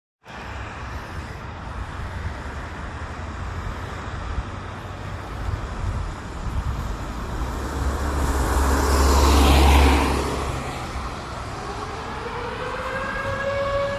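Road traffic noise, with a car passing close and loudest about nine to ten seconds in. Near the end an outdoor tornado warning siren begins to wind up, its tone rising in pitch, sounding for a test.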